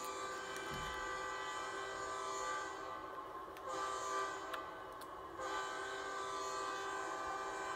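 Train horn sounding a held multi-note chord in long blasts, broken off briefly about three seconds in and again about five seconds in.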